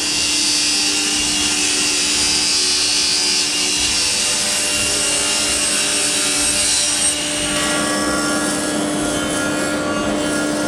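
Planer-thicknesser of an SCM minimax lab 300p combination machine, with a helical Silent cutterhead, running with a steady hum while a board feeds through and is planed with a loud hissing cut. The cutting noise drops away about seven seconds in as the board leaves the cutterhead, and the machine runs on empty.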